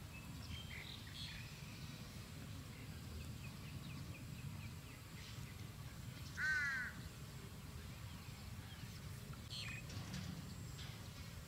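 Outdoor ambience: a steady low rumble with faint, scattered bird chirps, and one short, loud animal call about halfway through.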